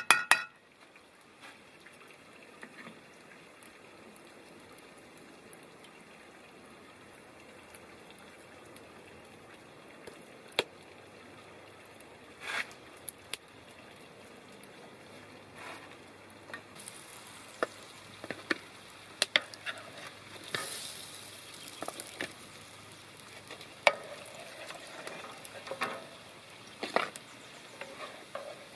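Soft clicks and scrapes of a spoon shaping greens patties. From a little past halfway, a patty frying in oil in a pan: a steady hiss of sizzling with sharp taps of a wooden spatula on the pan.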